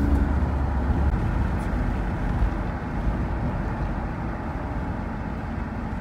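Steady road and engine noise of a moving car, heard from inside the car, with a deeper low rumble that eases about a second in.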